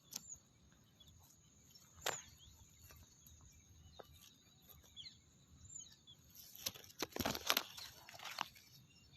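Outdoor morning ambience: faint, brief bird chirps over a steady high tone, with a few sharp clicks and a burst of rustling and knocking from about six and a half seconds in.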